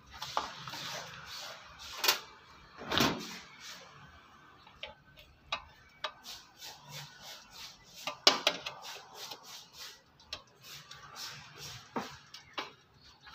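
Irregular small clicks, taps and scrapes of hand tools (a screwdriver, then pliers) working on the wiring and metal housing of an opened electric rice cooker base, with a sharper knock about three seconds in and the loudest clicks about eight seconds in.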